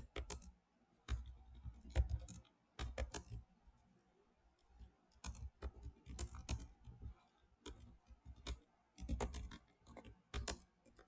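Computer keyboard typing in irregular bursts of key clicks, with short pauses between them.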